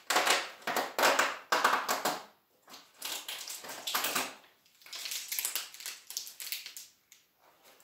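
Packaging being torn open and crinkled by hand: several crackling bursts of a second or two, with short pauses between.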